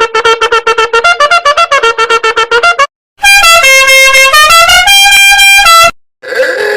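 Meme sound-effect clips played back to back. First a fast run of short staccato notes, about eight a second. Then a loud, brassy, horn-like tune of held notes stepping up and down in pitch. Another short effect starts near the end.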